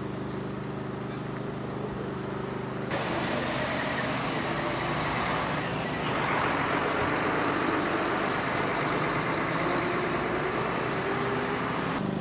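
Vehicle engines running at a roadside: a steady engine hum that switches abruptly about three seconds in to a louder, broad rushing engine and traffic noise, which swells again about six seconds in.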